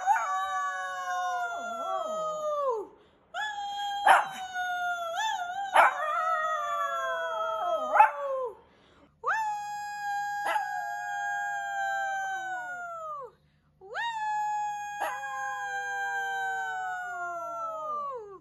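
Shih Tzu howling: four long, drawn-out howls, each holding steady on one pitch and dropping away at the end, with short breaks between them.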